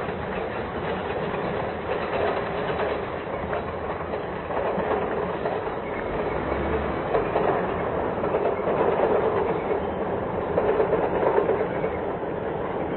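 Steady rolling, rattling noise of passing vehicles, swelling slightly in the second half.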